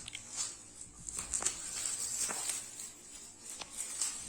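Handling noise from a bookshelf speaker and its removed grille being moved about: scattered light clicks, taps and rustling.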